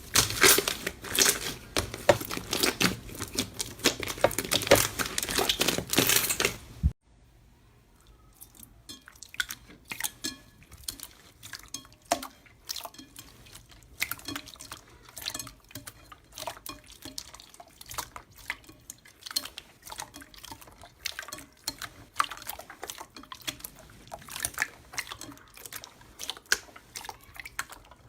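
Slime being worked by hand: dense crackling for about the first seven seconds, which cuts off abruptly, then quieter, sparser sticky clicks and pops.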